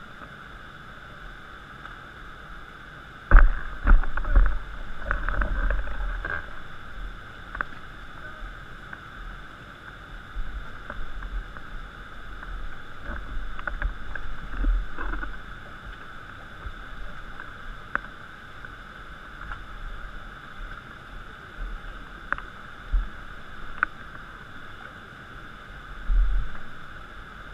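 Muffled water sloshing and knocking against an inflatable raft, over a steady hiss; the loudest run of knocks and thumps comes a few seconds in, with a few more later and another near the end.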